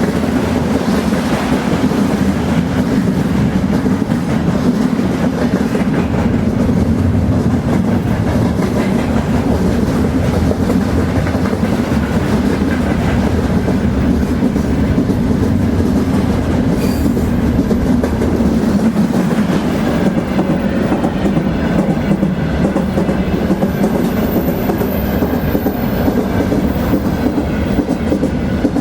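Train rolling along the track: a steady, unbroken rumble with the clickety-clack of wheels over the rails.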